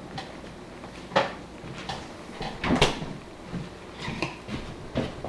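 Light knocks and clatter of kitchen items being handled, with two sharper knocks, one about a second in and one near the middle.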